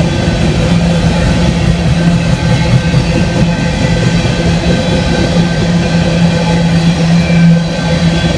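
Freight train rolling past: a steady low drone over dense, continuous running noise.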